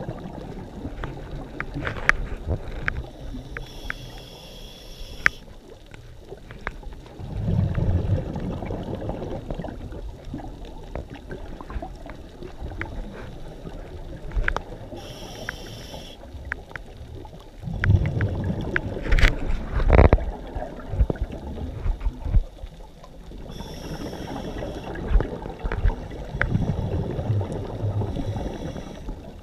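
Scuba diver breathing through a regulator underwater: three breaths, each a short hissing inhale followed a few seconds later by a low bubbling rush of exhaled air bubbles.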